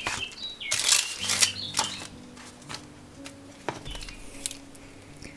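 Paper and packaging rustling and crinkling as small mail-order items are unpacked by hand, busiest in the first couple of seconds, with a light tap a little later.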